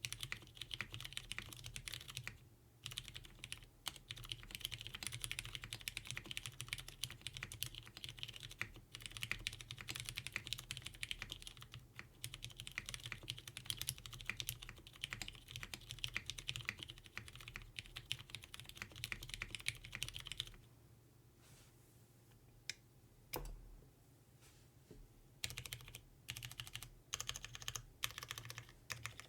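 Typing on a plateless Geonworks F2-84 custom mechanical keyboard with lubed Hyperglide Cherry MX Brown tactile switches and GMK keycaps: a dense, fast run of keystrokes. About two-thirds of the way through the typing stops for a few seconds, with one lone key press, then picks up again.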